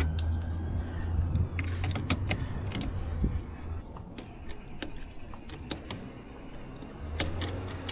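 Talbot Express van's starter motor cranking the engine without it catching. The cranking stops about four seconds in and starts again about a second before the end, with keys jingling and clicking at the ignition. It is running off a jump-start booster that is not powerful enough to start the engine.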